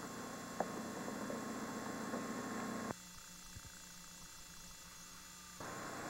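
Steady hum and hiss of an old camcorder videotape, with no other clear sound. About three seconds in it drops suddenly to a thinner, quieter hiss where the tape runs blank between recordings, and it comes back just as suddenly two and a half seconds later.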